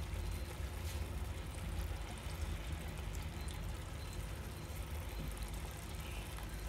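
Mutton and masala cooking in the biryani pot, a steady gentle sizzle and bubbling over a constant low hum.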